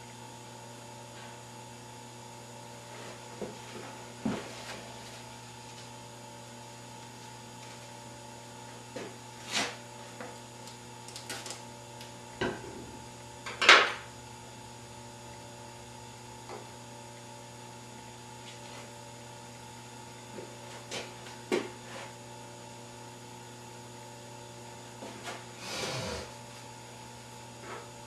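Steady mains hum under scattered small clicks, knocks and rubbing from hand work with a small sculpting tool. The loudest is a sharp knock about fourteen seconds in, with a longer rub near the end.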